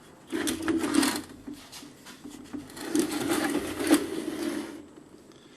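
A rebuilt 1970 Muncie M20 four-speed transmission being rolled over by hand on a bench: scraping and knocking of the cast case, in two bouts.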